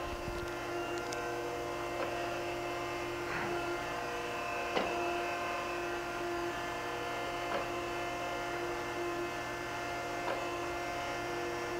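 Okamoto ACCUGAR-124N hydraulic surface grinder running with a steady hum from its hydraulic pump and wheel spindle. A faint click comes every two to three seconds as the hydraulic table reverses in plunge-feed mode.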